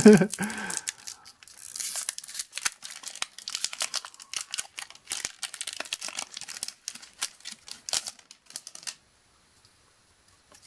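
A crinkly booster-pack wrapper being torn open and rustled, with cards handled: a burst of tearing about two seconds in, then crackling and clicking that stops about nine seconds in.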